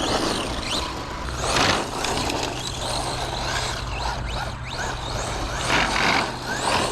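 Team Associated Pro2 SC10 brushless short course RC truck driving: the 4000 kV brushless motor gives short rising and falling whines as the throttle is fed in and let off, over a steady hiss of tyre and running noise.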